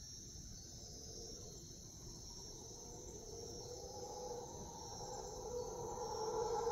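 Mantled howler monkeys roaring, a deep drawn-out call that swells in from about halfway and is loudest near the end, over a steady high-pitched buzz of night insects.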